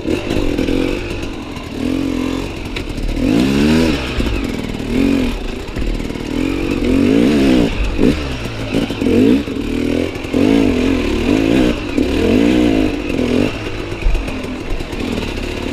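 Enduro motorcycle engine revving up and down again and again, the pitch rising and falling about once a second, as it is ridden over rough, branch-strewn ground.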